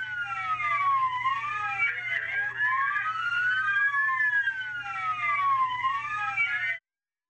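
Police car sirens on wail: two slow rising-and-falling tones sweeping out of step with each other, over a steady low hum, cutting off suddenly near the end.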